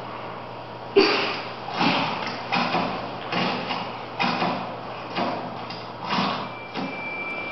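Heavy echoing thuds in an even stride, about one every 0.8 s, each fading slowly: a footstep sound effect for an illuminated dinosaur-footprint display. A low steady hum runs underneath, and a faint high steady tone comes in near the end.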